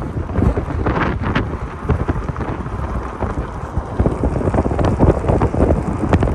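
Blizzard wind buffeting the microphone: a loud, gusty low rumble that surges and eases irregularly.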